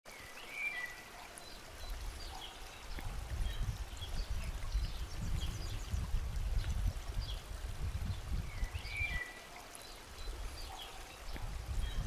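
A burbling stream with small birds chirping over it; the same twittering bird call comes twice, near the start and again near the end.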